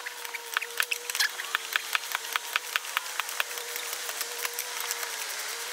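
Cordless power tool running with a steady, slightly wavering whine and a rapid, irregular light clicking, used to back out fasteners on a sterndrive's trim and steering housing.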